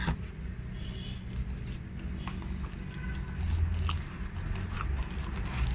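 Cardboard box flaps and paper wrapping being handled: scattered light rustles and taps as a camera is worked out of its packaging, over a low steady rumble.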